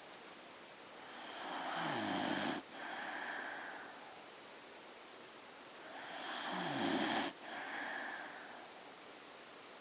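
A sleeping pet snoring in slow, even breaths. Twice, a long snore swells and falls in pitch, then stops abruptly, followed by a softer, shorter breath. A third snore begins near the end.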